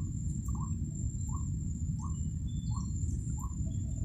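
A bird repeating a short rising note about every two-thirds of a second, over a steady low rumble and a thin, high, steady whine.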